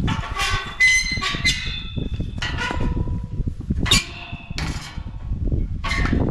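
An irregular series of sharp metallic clanks and clinks, several ringing briefly after the strike, over a steady low rumble.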